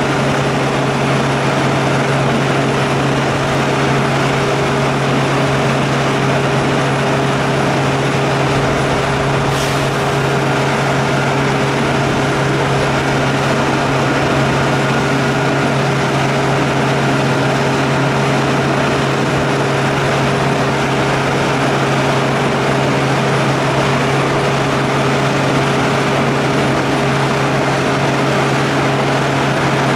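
The Caterpillar 3126B inline-six diesel of a Rogator 1080 sprayer running at a steady speed, with a steady low hum.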